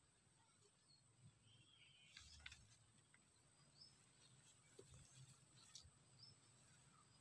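Near silence: faint outdoor ambience with a few short high chirps and some faint light clicks.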